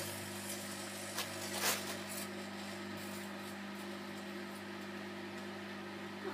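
Microwave oven running with a steady low hum, with two brief clicks in the first two seconds.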